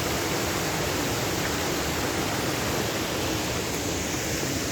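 Waterfall: water falling and rushing with a steady, even hiss.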